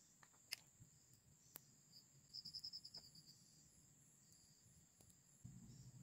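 Near silence with a faint, steady high-pitched insect drone, crickets, and a brief run of rapid chirps about two and a half seconds in. A few faint clicks come from snail shells being picked apart by hand.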